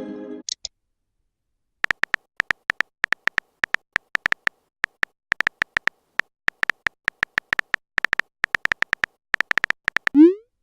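Smartphone keyboard typing clicks: an irregular run of quick taps starting about two seconds in, followed near the end by a short upward swoop, the message-sent sound.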